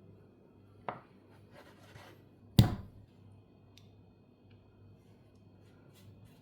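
Kitchen handling sounds during food preparation: a light knock about a second in, soft rustling, then one loud heavy thud, with a few faint clicks after.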